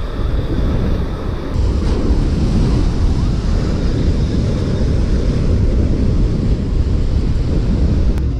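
Waves breaking and washing up a shingle beach, with wind buffeting the microphone.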